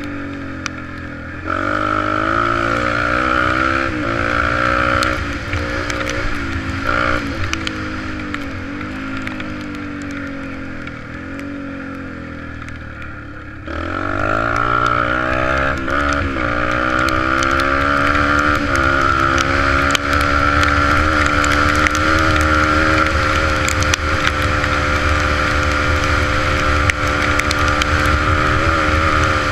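Yamaha 125 dirt bike engine running under throttle, its pitch rising and dipping as the rider accelerates and backs off. It drops to a softer, lower note for a few seconds, then opens up sharply about fourteen seconds in and holds a steady high pitch at speed.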